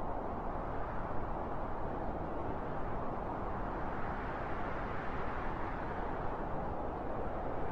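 Soft wind blowing steadily, a low rushing noise that swells slightly brighter in the middle.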